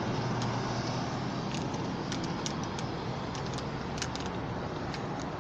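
Steady low rumble of a vehicle, with scattered light clicks and ticks throughout.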